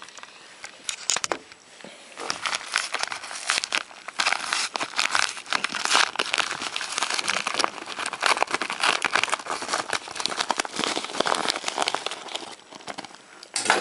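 Parcel packaging being opened by hand: continuous crinkling and crackling of the wrapping, busy from about two seconds in.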